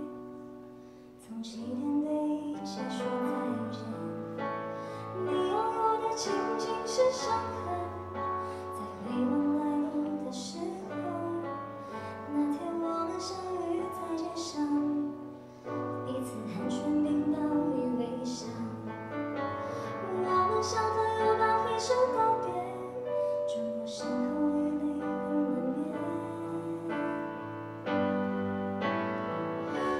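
Small vocal group singing live with electric keyboard accompaniment, a female voice leading over sustained keyboard chords and bass notes.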